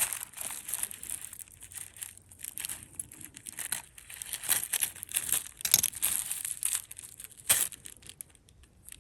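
Crinkling and rustling with many small clicks as a tangle of costume jewelry is handled and pulled apart, with one sharper click near the end.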